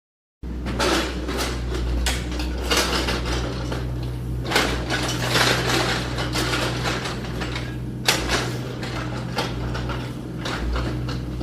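Repeated metallic clinking and clattering over a steady low machine hum.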